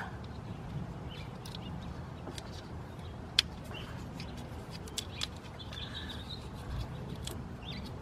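Vinyl electrical tape being pulled off the roll and wrapped around a wiring connector, with scattered clicks and crackles of handling and one sharper click about three and a half seconds in. Faint bird chirps in the background.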